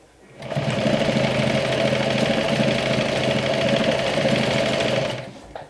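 Sewing machine stitching at a steady speed, starting just after the start and stopping near the end.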